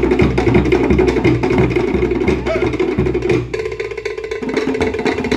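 Cook Islands drum ensemble playing a fast, driving rhythm on wooden slit log drums (pate) over a deep skin bass drum. A little past halfway the deep drum strokes drop out for about a second, leaving the dry wooden strokes, then come back.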